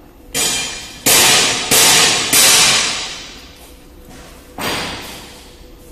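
A plastic bag of honey powder being handled and shaken: five sudden crackling swishes, three close together in the first half and one more near the end, each fading over about half a second.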